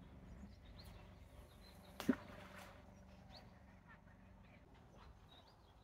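A 2 oz lead and PVA solid bag landing in the water with a single short plop about two seconds in, over faint bird chirps.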